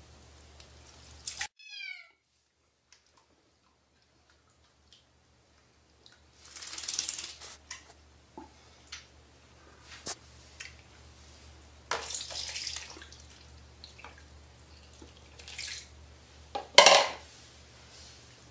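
Water splashing and sloshing in a sink or tub in several short bursts, with clicks and knocks between them; the loudest splash comes near the end. Near the start a click is followed by a quick run of falling tones.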